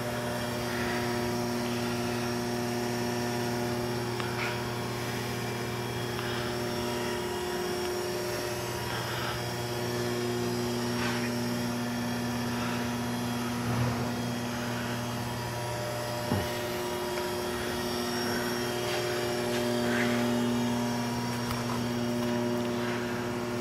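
Vectrax 6 x 18 inch surface grinder's three-phase spindle motor running with a steady hum, with a couple of faint knocks about two-thirds of the way through.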